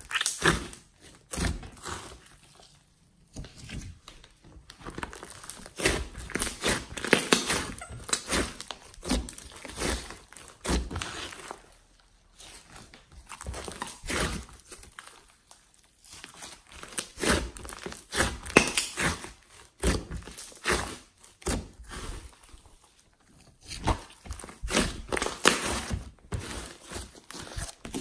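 Thick glossy slime mixed with clay being kneaded, squeezed and stretched by hand, giving sticky crackling and popping sounds in bursts with brief pauses.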